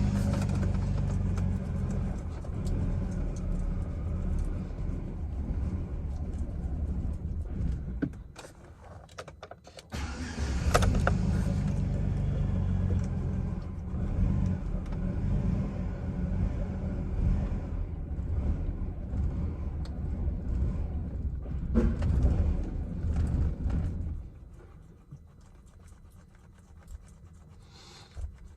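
Chevrolet Silverado engine being cranked over on a nearly dead battery: two long, uneven cranking spells, the first about eight seconds, then after a short pause a second one of about thirteen seconds that starts with a sharp click and cuts off suddenly.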